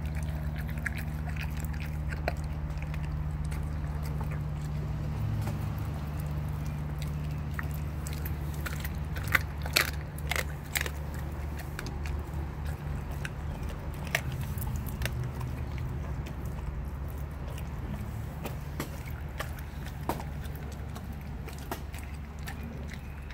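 German Shepherd chewing a raw chicken leg quarter, with wet gnawing and a few sharp crunches of bone near the middle and more now and then later. A steady low hum runs underneath.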